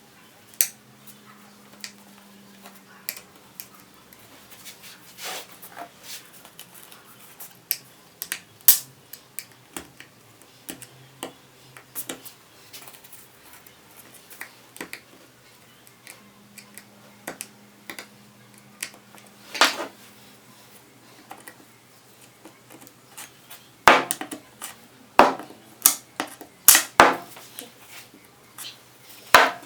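Scattered clicks and knocks of hand work on a wooden chair being repaired, with a quicker run of about half a dozen loud, sharp knocks in the last six seconds.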